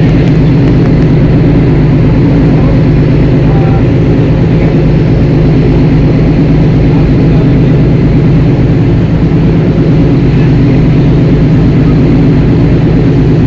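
Boat engine running steadily and loudly while under way.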